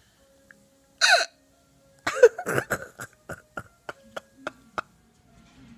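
A young child's short, high squeal about a second in, then a run of quick hiccuping giggles that slow down and fade.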